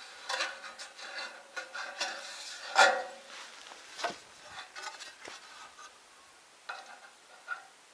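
Thin painted sheet-metal pieces scraping and rubbing against each other, with a few light clicks, as a small offcut is slid along a long metal trim strip. The loudest scrape comes about three seconds in, and the handling dies away about six seconds in.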